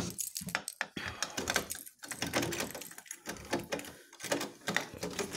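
Key working a door lock: a run of sharp metallic clicks, knocks and rattles as the door is locked.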